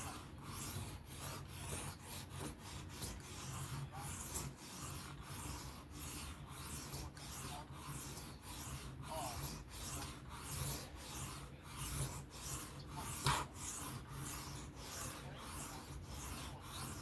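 Knife blade being sharpened freehand: steady, even back-and-forth strokes of the steel edge rasping across a sharpening stone, working one side of the bevel to raise a burr. One stroke about two-thirds through is louder than the rest.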